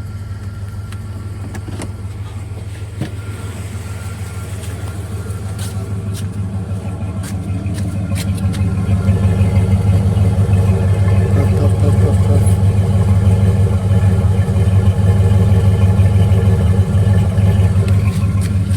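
2000 Dodge Durango's engine running steadily, getting louder from about eight seconds in. The hood is visibly shaking, and the truck has a fault of stalling once warm.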